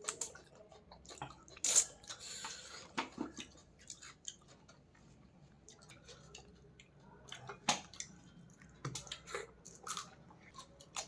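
Close-miked chewing and mouth sounds of a person eating fish and rice: irregular small clicks and smacks, with a sharper, louder click about two seconds in and another near eight seconds.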